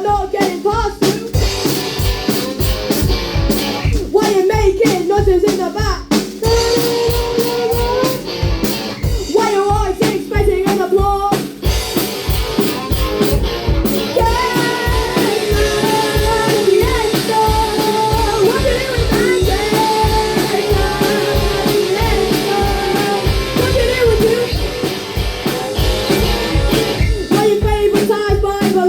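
A rock band playing live: a steady drum beat with electric guitar and bass, and singing at times.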